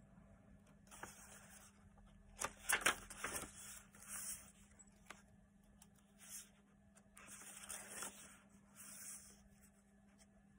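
Pages of a handmade paper journal being turned by hand: soft paper rustling and sliding, with a louder cluster of sharp paper flicks about two and a half to three and a half seconds in.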